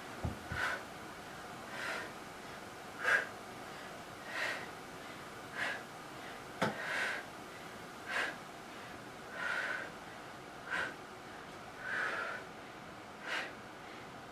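A woman breathing hard in short, forceful puffs, about one every second and a bit, keeping time with her tricep dips on a box.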